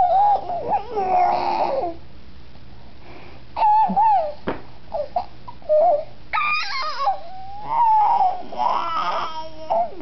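A seven-month-old baby making strange squealing and babbling vocal noises in a string of short bursts with pauses between, the pitch gliding up and down, with one higher squeal midway.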